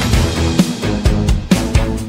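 Background music: an upbeat instrumental track with a steady drum beat.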